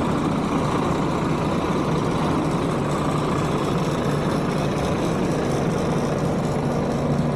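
Volvo B11R coach's rear-mounted 11-litre six-cylinder diesel engine idling with a steady low hum.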